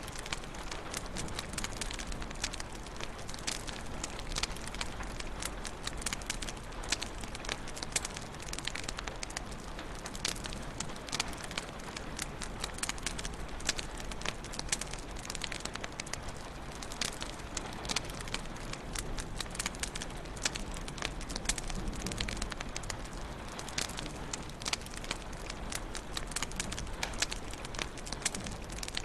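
Wood fire crackling steadily in a fireplace: many sharp, irregular pops and snaps over a low, even hiss of burning.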